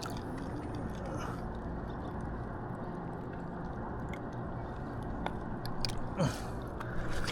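Wet, squishy handling noises and a few small clicks over a steady low rush of background noise, as a hooked carp is held and unhooked by hand.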